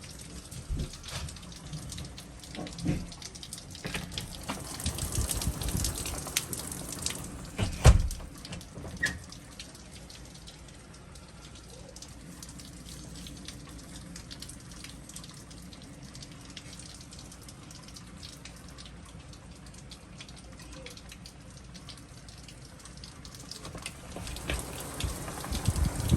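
Rain falling steadily, with scattered drops pattering, and a single low thump about eight seconds in.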